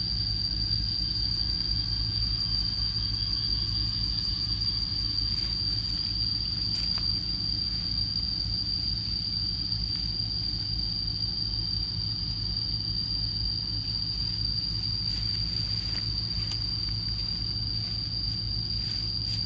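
A steady high-pitched tone holds without a break over a constant low rumble, with a few faint rustles and clicks.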